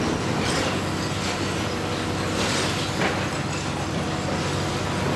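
Hitachi Zaxis 350 demolition excavator's diesel engine running steadily under hydraulic load. Over it come several short bursts of crunching and falling concrete as the crusher jaws bite into the building.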